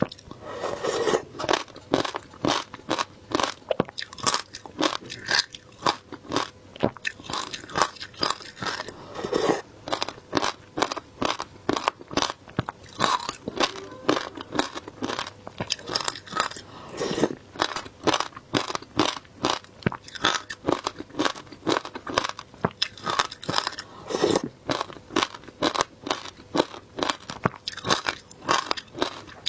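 Frozen shaved ice being bitten and chewed: a steady run of crunches, several a second.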